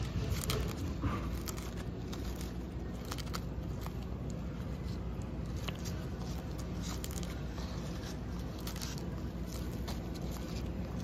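Red-footed tortoises biting and tearing at fresh green leaves: irregular crisp crunches and clicks of their beaks through the leaves, over a low steady background rumble.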